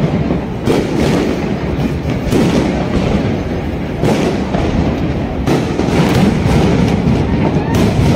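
Large fireworks display: a steady barrage of shell bursts, with sharp booms every second or so.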